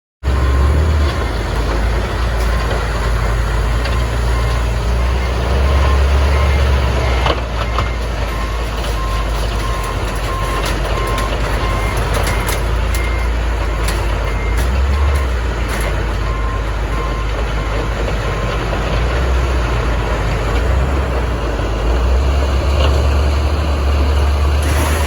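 Heavy vehicle engine running steadily with a deep rumble, with a reversing alarm beeping on and off in the background.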